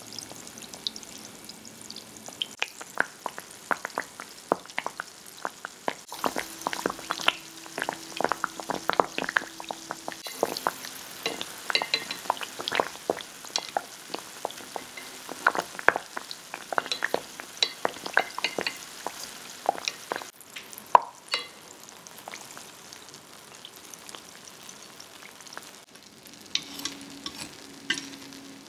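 Yakgwa dough deep-frying in oil in a pot: a steady sizzle with frequent crackling pops.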